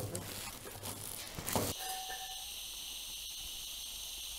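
Plastic bag crinkling, then from about two seconds in a steady hiss of gas from a portable-burner gas canister filling the bag.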